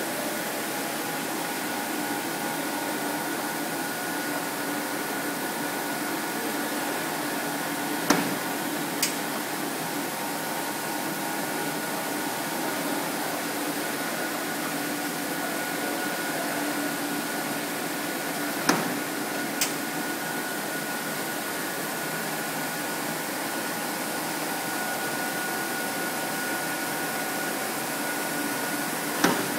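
Rubber knitted-hose production line machinery running with a steady mechanical hum and several held tones. A few sharp clicks cut through it: a pair about a second apart, another pair about ten seconds later, and one more near the end.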